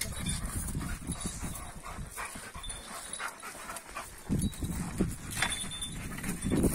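Dogs panting and shuffling around a feeding, with scattered short knocks and a louder dull thud about four seconds in.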